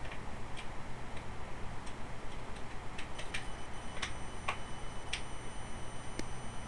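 HP Compaq Presario F500 laptop giving off a thin, high-pitched whine that sets in about three seconds in, over a low steady hum. Scattered, irregular sharp clicks run throughout.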